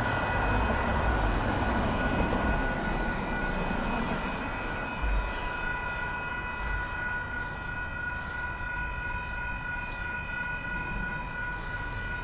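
Grade-crossing warning bells ringing steadily, with the low rumble of an approaching freight train beneath them.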